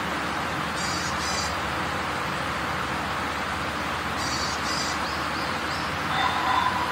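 Steady hissing background noise of an open-air market, with short high bird chirps in two quick pairs, about a second in and again about four seconds in. A brief louder tone comes near the end.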